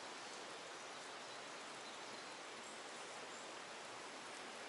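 Faint, steady outdoor hiss by the water, with a few faint high chirps over it.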